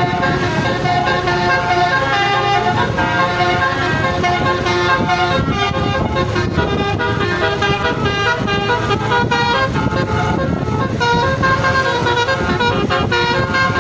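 A bus's Basuri telolet horn, its several trumpets playing a tune as a quick run of changing notes without a break, over a low rumble.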